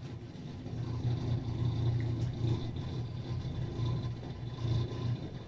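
A steady low hum of background noise, wavering slightly in strength, with no distinct events.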